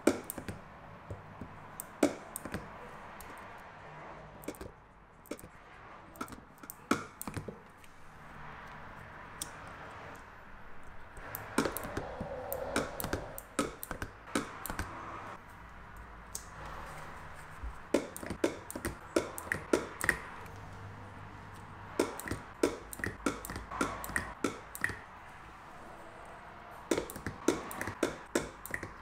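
Handheld spot welder firing short pulses through 0.1 mm pure nickel strip onto 18650 lithium-ion cells: sharp clicks come in quick clusters, one for each weld.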